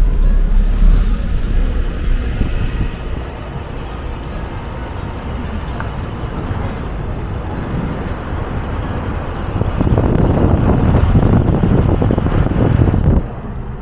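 Road and engine noise of a vehicle driving along a highway. About ten seconds in it grows louder and rougher for some three seconds, then drops off suddenly.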